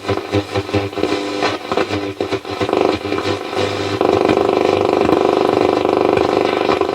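Roberts R707 transistor radio's loudspeaker on the shortwave band, which is working: choppy broken signal over a steady hum, then a steady buzzing tone from about four seconds in.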